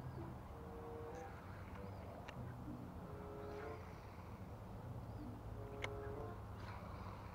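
Birds calling: short pitched calls repeating every second or two and thin, arched high chirps every few seconds, over a steady low rumble, with a few faint clicks.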